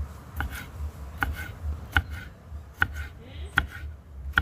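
Kitchen knife slicing through a green sweet pepper onto a wooden chopping board: a sharp tap on the board with each stroke, in a slow, even rhythm of about five strokes.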